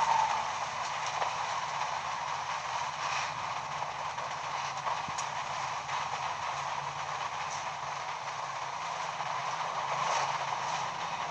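52-inch Uchida Arctic CF-146 ceiling fan running: a steady rush of air from the blades over a low motor hum, with a few faint clicks.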